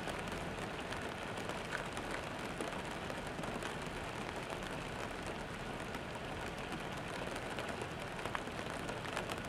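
Freezing rain falling on icy outdoor surfaces: a steady hiss of rain dotted with many small ticks of drops.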